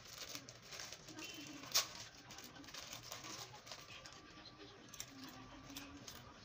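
Soup simmering in a lidded stainless-steel pot: faint bubbling with a few sharp clicks and pops, the loudest about two seconds in.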